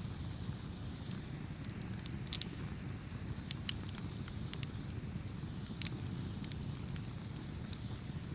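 Campfire burning with a steady low rumble and irregular sharp crackles and pops from the wood, several bunched together a little past the middle.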